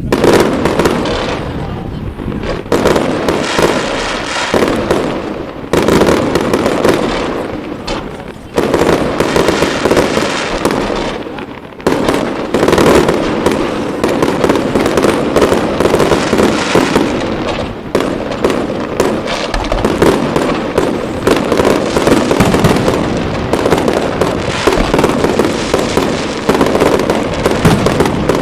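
Fireworks display in a dense, continuous barrage of bangs and crackling shells, swelling again with a fresh salvo every few seconds.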